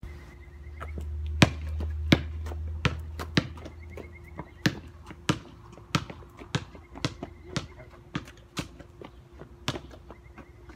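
A basketball being dribbled, a run of sharp bounces about every half-second to second, the loudest two between one and two and a half seconds in.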